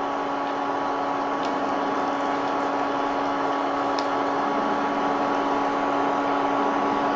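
Silicone whisk stirring a simmering, thickening cream sauce in an enamelled cast-iron pot, heard over a steady, even hum with a constant tone.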